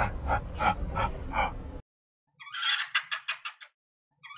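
A man laughs in a few short pulses, which stop abruptly. After a brief silence comes a rapid run of chattering, cackling pulses that slow and fade, and the same run starts again near the end.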